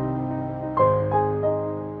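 Solo piano background music: held notes dying away, then a falling three-note phrase struck about a second in, the sound fading toward the end.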